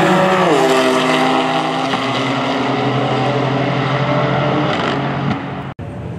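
Two high-powered cars racing past at full throttle, their engine note dropping sharply as they pass about half a second in, then running on steadily as they pull away down the straight. Near the end the sound cuts off abruptly and gives way to quieter engine noise from cars waiting at the start line.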